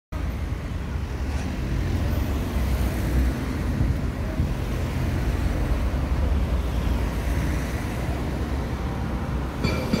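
Street traffic noise: a steady low rumble of passing vehicles. Near the end, a higher ringing tone with rapid clicking joins in.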